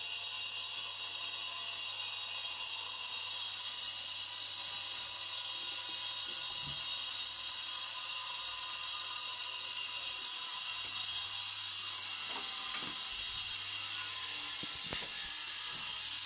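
A steady high-pitched hiss that holds at one level throughout, with a few faint clicks toward the end.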